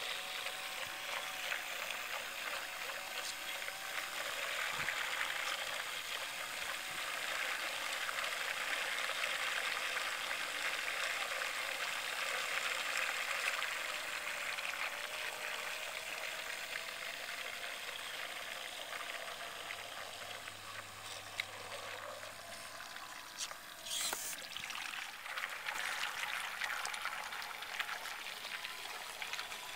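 Water churning steadily from a 19-inch model tug's propeller wash through its Kitchen rudder, under a faint motor whine that wavers slightly in pitch. A brief sharp high-pitched sound cuts in once near the end.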